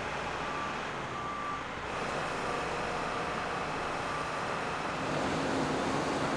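Steady traffic and heavy-equipment noise around an excavation site, with a vehicle's backup alarm beeping a few times in the first two seconds.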